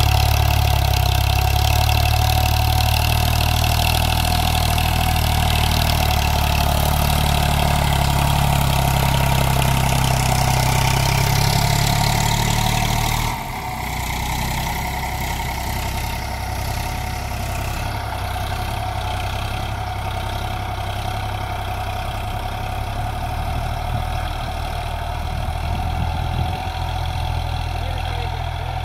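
Eicher 548 tractor's air-cooled three-cylinder diesel engine running steadily under load while pulling a disc plough through the soil. The sound drops noticeably in level about halfway through and goes on quieter.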